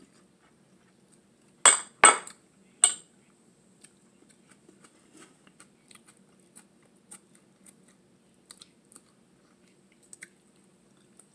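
Mealtime sounds: three sharp clinks of tableware about two seconds in, then soft chewing with faint clicks as food is picked from a grill plate.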